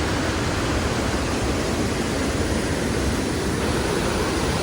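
Steady rushing of a waterfall and creek.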